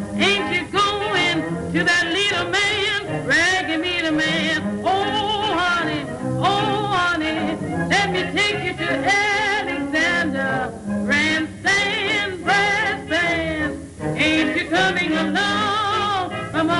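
Music: a song with a solo voice singing in a wide vibrato over steady accompaniment.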